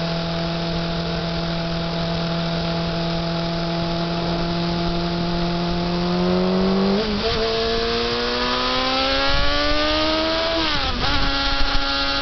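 Honda CBR F4's inline-four engine at a steady cruise, then rising in pitch as the bike accelerates from a little past halfway, with a brief drop in revs near the end before it steadies. A steady rushing noise lies under the engine throughout.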